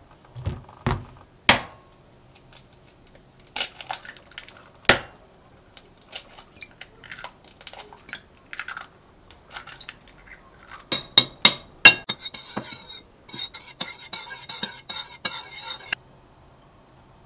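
Kitchen prep at a ceramic mixing bowl: a few sharp knocks, then eggs being cracked into the bowl, then a metal utensil beating the eggs with quick, ringing clinks against the bowl that stop suddenly near the end.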